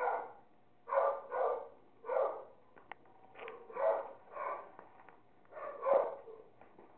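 Dogs barking: a string of about nine short barks, some coming in quick pairs.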